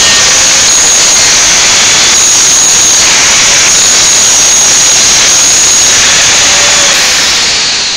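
Angle grinder grinding a sheet-steel bumper: a loud, steady high whine over a grinding hiss. Near the end it begins to wind down.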